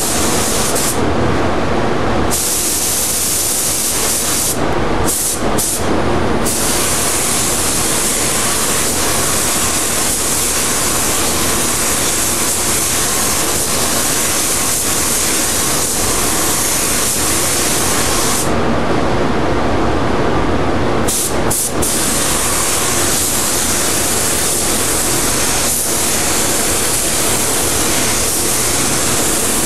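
Gravity-feed paint spray gun hissing with compressed air as it sprays paint, cutting out briefly three times when the trigger is let go. A lower steady rush of air continues underneath throughout.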